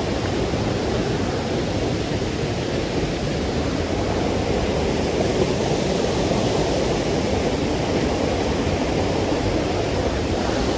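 Waterfall rushing, a steady, even noise of falling water that does not let up.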